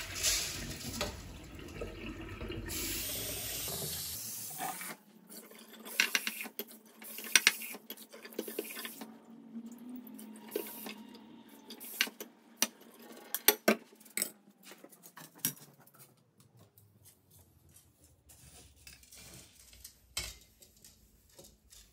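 Rinsed rice and water poured from a glass bowl into a mesh strainer in a stainless steel sink, splashing steadily for about four seconds. After that come scattered sharp taps and knocks as the bowl and strainer are handled while the rice drains, thinning out toward the end.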